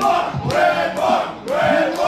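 A crowd of people chanting and shouting in unison, with a steady beat of about two shouts a second, as picked up by a phone's microphone.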